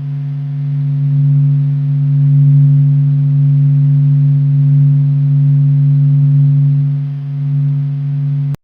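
Space-probe radio emissions converted into sound: a loud, steady low hum with a fainter higher tone above it, cutting off abruptly near the end.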